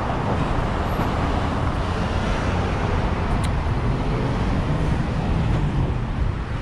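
Steady city street traffic: cars passing on a busy road close by.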